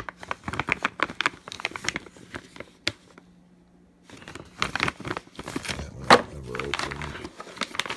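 Clear plastic bags holding cables and adapters crinkling as they are handled, in two spells with a short pause between them, and a sharp click about six seconds in.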